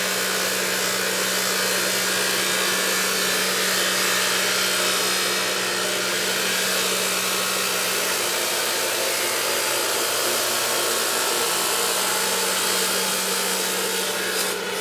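Stone-working machine running steadily: a constant hiss with a steady low hum, changing slightly just before the end.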